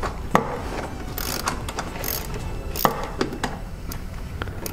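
Small hand ratchet with a screwdriver bit clicking in short, irregular runs as it backs out a radiator mounting screw, with a couple of sharper clacks about a third of a second in and just before three seconds.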